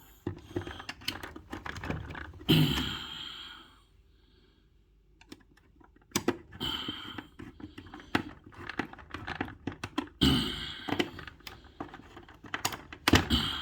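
Clicks and knocks of small tools and parts being handled while tightening the terminal screws on a dishwasher's wiring terminal block, stopping for a couple of seconds midway.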